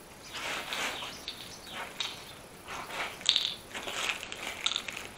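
Thin plastic parts bag crinkling as it is handled and opened to unwrap small air-compressor parts, in irregular bursts with a few sharper crackles about three seconds in.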